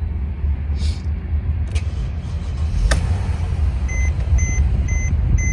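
Low steady rumble of a car running at idle, with a few light clicks. About four seconds in, a high electronic beep starts repeating about twice a second, like a vehicle warning chime.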